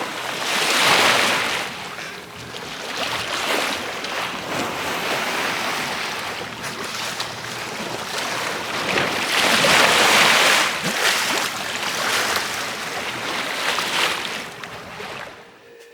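Sea water washing and splashing, with wind on the microphone. The noise swells about a second in and again around ten seconds, and falls away near the end.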